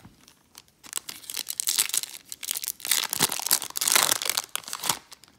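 A foil Yu-Gi-Oh! booster pack wrapper being torn open and crinkled by hand: a dense run of crinkling and tearing from about a second in until near the end.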